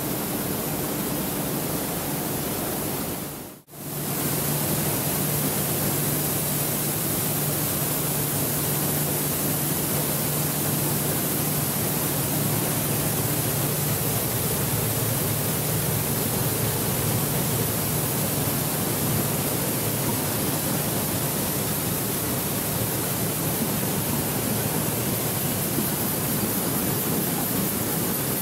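Steady din of coffee-sorting machinery running: a low motor hum under a loud, even hiss. It drops out briefly about three and a half seconds in.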